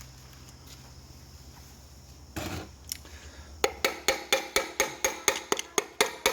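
Rapid metal-on-metal tapping, about three sharp ringing strikes a second, starting after a short scrape: a tool tapping on the connecting rod and piston of a Toyota 22RE engine block being torn down, to free a stuck part.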